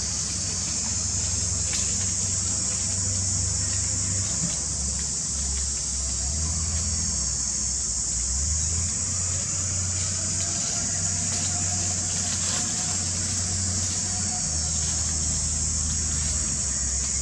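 Steady outdoor background noise: an even high-pitched hiss over a low rumble, with a few faint clicks.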